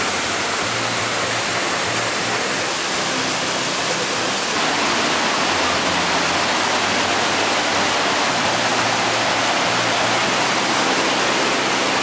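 Cola de Caballo waterfall: water pouring down the rock face and rushing over the cascades below, a steady, even rush of falling water.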